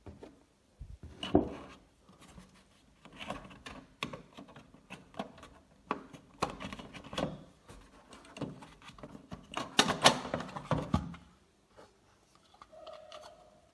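Plastic lamp-cover panel on the back of a projector being handled and pulled off by hand: irregular clicks, knocks and scraping of plastic, with a brief squeak near the end.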